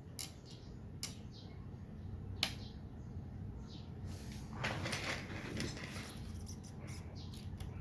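Small parts being handled and fitted during assembly: a few sharp clicks and knocks, then a short scraping rustle about five seconds in.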